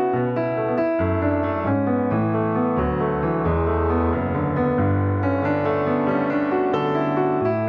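Background piano music: a gentle melody of sustained notes over bass notes.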